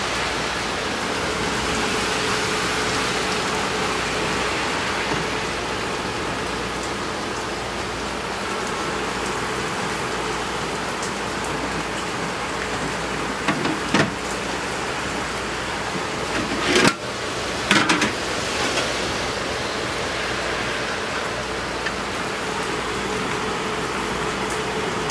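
Steady bubbling hiss of ramen boiling in a bowl on an automatic induction ramen cooker, under a faint steady hum. Metal tongs clack against the topping containers about fourteen seconds in and a few times around seventeen seconds.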